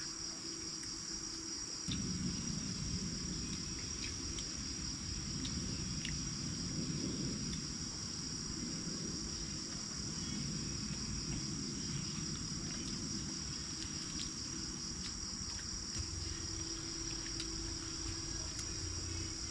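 Crickets chirring in a continuous high, pulsing trill. About two seconds in, a steady low rumble of noise joins it.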